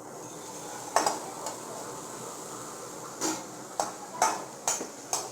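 Chopped onions frying in oil in a pan with a steady sizzle, while a spoon stirs them, knocking and scraping against the pan several times.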